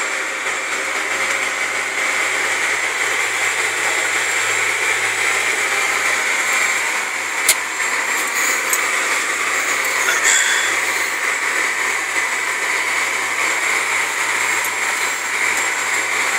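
Tractor engine running steadily under load, heard from inside the cab while pulling a disc through a field. A single sharp click comes about seven and a half seconds in.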